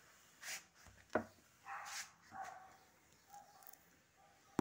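Faint handling noise: a few soft rustles and a sharp click about a second in, as a hand follows a lamp cord along a wooden bed headboard.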